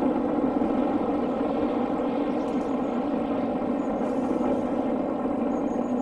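LMS Black 5 steam locomotive and its train running: a steady, unbroken noise with no distinct exhaust beats.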